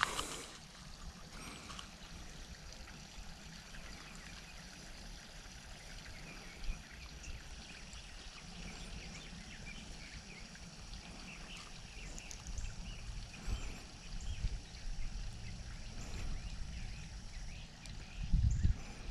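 Faint outdoor background with low wind rumble on the microphone, heavier near the end, and soft handling noises from hands rigging a soft-plastic worm on a fishing hook.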